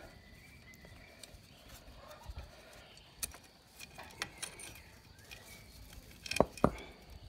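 Light metallic clicks and clinks of a timing chain and camshaft sprocket being worked loose by hand on the cylinder head of a Linhai 300 ATV engine, with two sharp knocks close together near the end.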